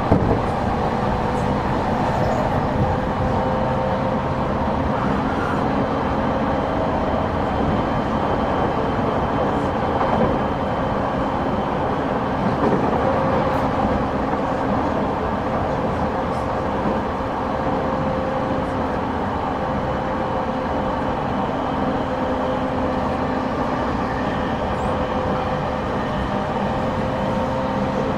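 Interior running noise of a JR 209 series electric train, heard in motor car 208-2204 at a steady speed: wheels-on-rail rumble with a steady motor and gear hum that holds its pitch.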